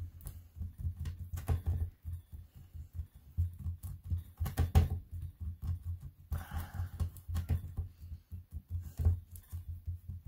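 Hands squeezing and pressing a polymer clay cane against a plastic cutting mat to reduce it, giving soft, irregular thumps and small clicks and rubs.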